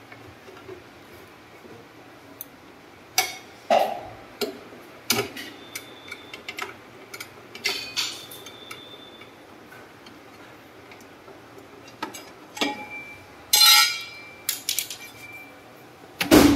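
Screwdriver clicking and clinking on screws and the steel frame of a top-loading washing machine around its motor and pulley: scattered knocks, some with a short metallic ring, and a louder rattle of knocks about three-quarters of the way through.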